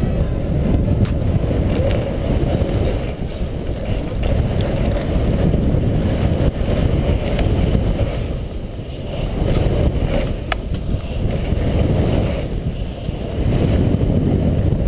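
Wind buffeting a helmet-mounted camera's microphone together with BMX tyres rumbling on a paved BMX track, a loud steady rush that swells and eases with speed. One sharp click about ten and a half seconds in.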